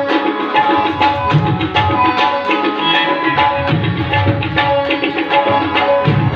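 Instrumental music without singing: a harmonium holds and moves between sustained reedy notes over a hand drum played on the lap in a steady rhythm, with a deep bass stroke every second or two.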